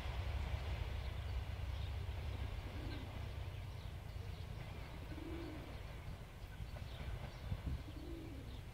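A dove cooing three times, about two and a half seconds apart, over the low rumble of a departing diesel-hauled passenger train fading into the distance.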